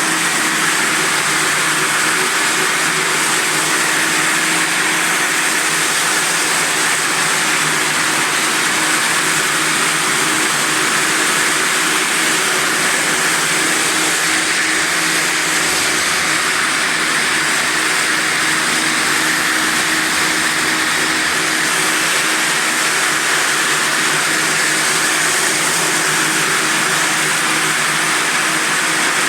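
Quadro multi-disc floor sander at 600 rpm, running steadily on grit-70 diamond sanding discs while coarse-sanding old mosaic parquet. A constant motor hum sits under an even grinding hiss.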